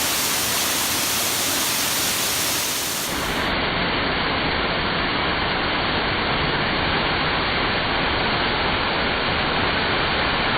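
Steady rushing roar of a 20-metre waterfall in strong flow. About three seconds in the sound turns duller and deeper.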